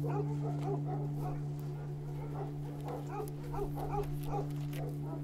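Dogs barking, with short calls several times a second over a steady low hum.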